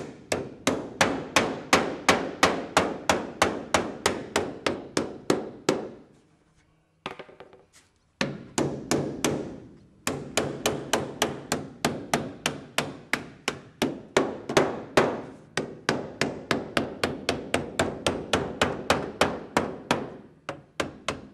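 Rapid, even hammer blows on the dented sheet-aluminium skin of a light plane's wing leading edge, about four a second, each with a short ring. A break of about two seconds comes around six seconds in, then the blows resume. This is hammer work to smooth and reshape skin crushed by a goose strike.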